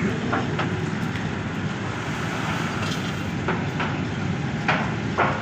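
Motor-driven peanut roasting machine running steadily, with a few light clicks and knocks of peanuts and a large iron pan being handled.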